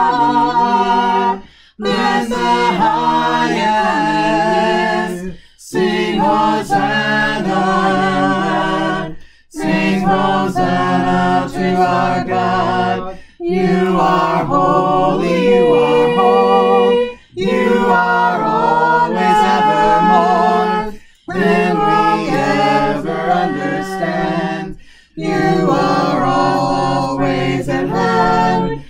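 A small group of voices singing a hymn unaccompanied, in harmony. The sung phrases last about four seconds each, with short breaks between them.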